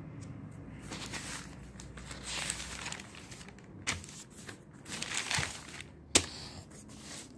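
Newsprint pages being handled and turned, rustling and crinkling in irregular surges, with one sharp click about six seconds in.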